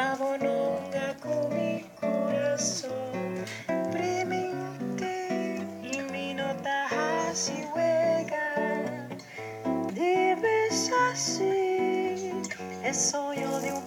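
Acoustic guitar playing a run of picked notes and chords over a moving bass line.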